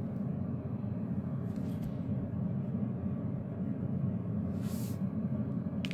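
Steady low hum of background noise, with two brief soft hisses partway through.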